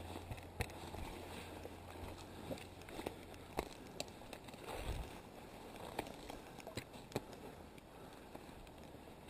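Faint footsteps through dry scrub and brush, with scattered twig snaps and crackles and a dull thump about five seconds in.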